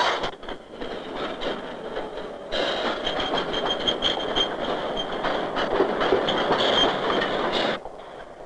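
Freight cars rolling along yard tracks: the steady rumble and rattle of steel wheels on rail, with a thin, high wheel squeal from about three seconds in. The sound drops away abruptly about a second before the end.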